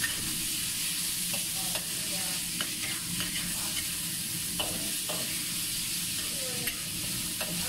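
Sliced beef sizzling steadily in a wok over high heat while a metal wok ladle stirs and scrapes it, with short clinks and scrapes of the ladle against the pan every second or so.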